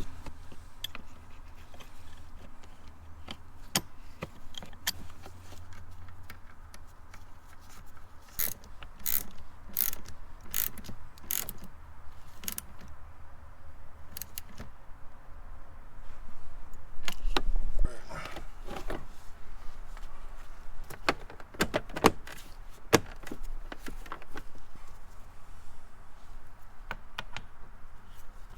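Scattered metallic clicks and knocks of a car's shifter assembly and hand tools being worked as the shifter is seated and rotated. There is a quick run of sharp clicks about a third of the way in, a heavy thud a little past halfway, and more clicks after it.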